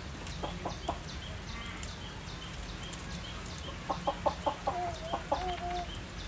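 Animal clucking calls: three short clucks about half a second in, then a quick run of clucks from about four seconds in that turns into a drawn-out wavering call. Faint high chirps repeat steadily behind them.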